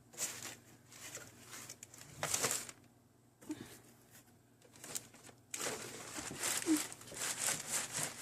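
A broom pushed among crinkly packages up high, rustling and crinkling: several bursts, then near-continuous rustling over the last few seconds.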